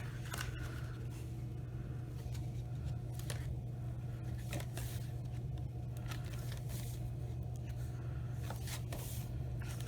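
Thick, glued paper pages of a handmade collage book being turned, with faint scattered rustles and soft paper clicks over a steady low hum.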